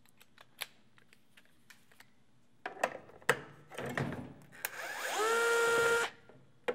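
A few clicks and taps, then a small handheld electric screwdriver's motor spins up with a rising whine and runs steadily for about a second before cutting off.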